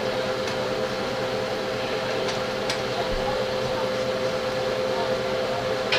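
A steady mechanical hum with one constant tone over a noisy whir, like a running appliance fan, with a few faint clicks.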